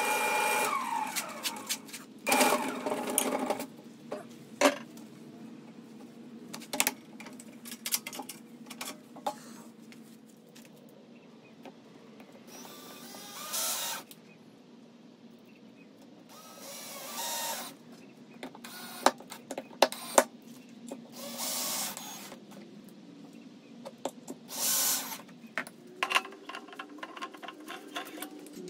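A Grizzly wood lathe with a cedar blank winds down in the first second. Then a cordless drill drives screws through a metal faceplate into a cedar blank in about six separate short bursts, with clicks and handling between them. Near the end the lathe motor starts up again with a rising hum.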